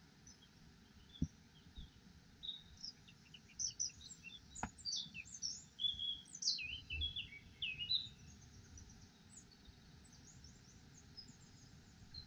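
Small birds chirping and twittering, with many short, high calls that are thickest in the middle and thin out toward the end. A sharp click comes about a second in, and another a few seconds later.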